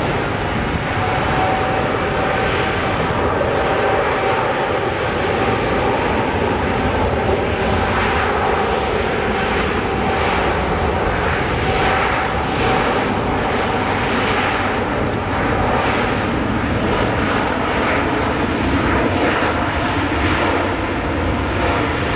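A Boeing 747-8's four GEnx turbofans at takeoff thrust as the jet accelerates down the runway. The sound is loud, steady engine noise with a whine held above it and a fluttering rumble.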